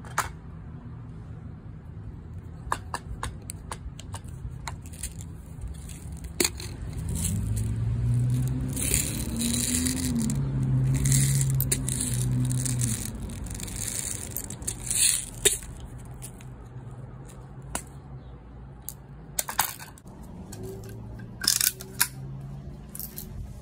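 Scattered metal clicks and rattles of a Daisy lever-action BB air rifle being handled. A low droning sound swells and fades in the middle.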